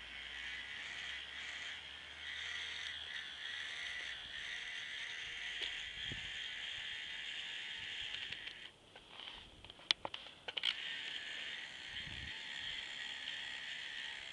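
The electric motor and plastic K'NEX gear train of a toy four-wheel-drive truck whirring steadily as it drives. About two-thirds of the way through the whir drops out briefly, and a couple of sharp clicks follow as it picks up again.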